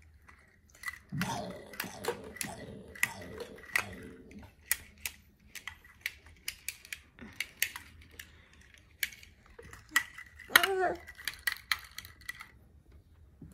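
Hard plastic toy pieces clicking and clacking irregularly as they are handled and knocked together, with a short voice about ten and a half seconds in.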